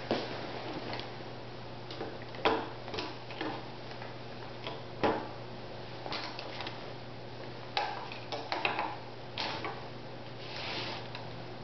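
Stainless steel ring-handled surgical instruments clicking and clinking as they are lifted, set down and straightened in their holder, with scattered sharp clicks a second or two apart over a steady low hum.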